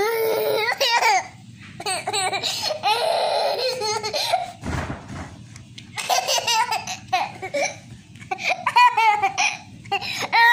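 A toddler laughing hard in repeated high-pitched bursts with short pauses between them.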